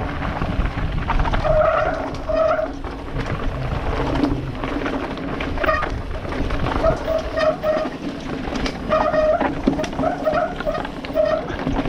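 A mountain bike descending a dusty, rocky trail: tyres crunching over dirt and stones and the bike rattling over the bumps, with wind rushing over the helmet-mounted microphone. A short buzzing tone comes and goes again and again.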